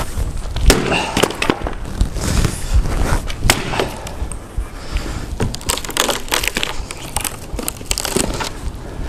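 An axe repeatedly chopping into a wooden log stump: a string of sharp, irregularly spaced strikes, with wood cracking and breaking.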